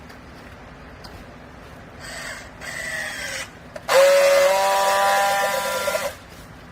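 Vertical hydraulic clothes baler running: a first shorter burst about two seconds in with a falling pitch, then a louder steady whine for about two seconds that cuts off suddenly.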